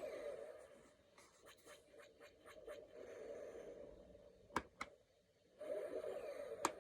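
Electronic sound effects from a toy Star Wars fighter pilot helmet: bursts of crackly, hissy noise. Two sharp clicks come about four and a half seconds in, and another near the end.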